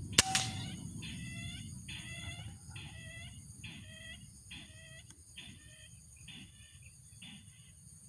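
A single sharp rifle shot just after the start, with a brief ringing tone after the crack. Around it runs a regular series of harsh clucking bird calls, about one a second, slowly fading.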